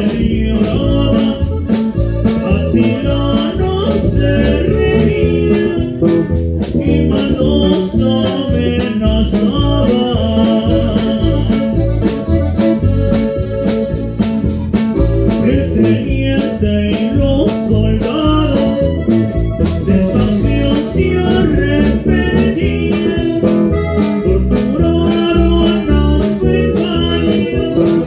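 Live norteño band playing: fast accordion-like runs over bajo sexto, bass and a steady drum beat.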